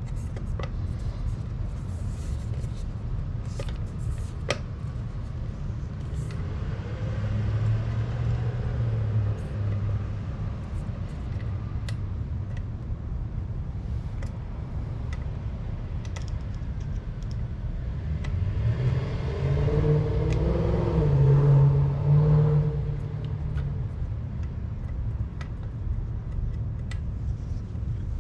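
A steady low rumble, twice swelling into a louder, pitched engine sound: once about six seconds in and again from about eighteen to twenty-three seconds, with a few light clicks.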